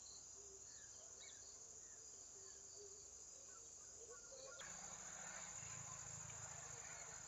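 Faint, steady high-pitched chirring of crickets. About four and a half seconds in, a soft rushing noise comes in under it.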